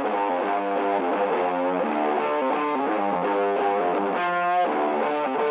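Background music led by a distorted guitar playing a quick run of notes at a steady level.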